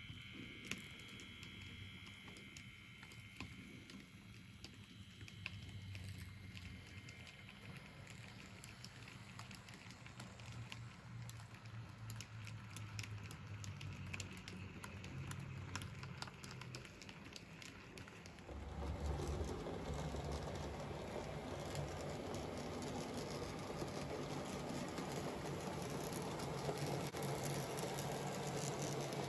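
Sound decoder of an N-scale Piko class 221 model diesel locomotive playing its diesel engine sound through the model's small speaker, with a stream of light clicks from the model running on its track. About two-thirds of the way through the engine sound steps up sharply to a louder, fuller note.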